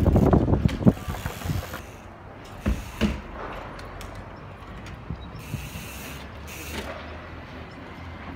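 Trials bike knocking against a stone wall as the rider hops and balances along it: a clatter in the first second with the sharpest knock about a second in, then two more knocks around three seconds in.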